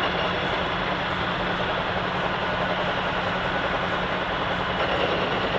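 Heavy machinery engines idling steadily, with a constant low hum under a dense, even rumble.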